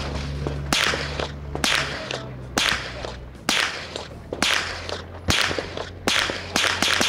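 Suppressed pistol-caliber carbine taking Glock magazines, fired semi-automatically: about nine sharp, cracking shots, roughly one a second, with the last two or three coming faster.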